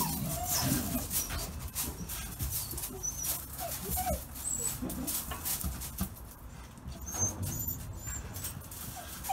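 Dutch shepherd puppies whimpering in short, squeaky cries that rise and fall, several times, with scattered clicks and rustling under them.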